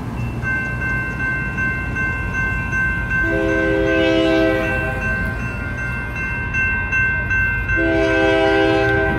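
Electronic railroad crossing bells ringing in a rapid, even pattern, starting about half a second in. Over them come two long blasts of a freight locomotive's horn, about three and eight seconds in, sounded for the crossing.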